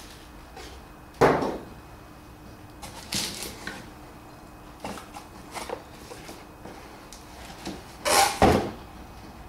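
Knocks and clunks of tools and metal being handled at a workbench: one sharp knock about a second in, a short clatter around three seconds, a couple of light taps, and two loud knocks near the end.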